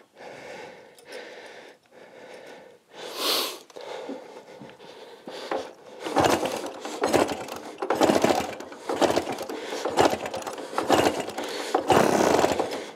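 A 1937 Scott 600 two-stroke twin is being kicked over again and again without starting, the engine turning in short bursts about once a second through the second half. The mechanic puts the failure to start down to only one of its two plugs firing.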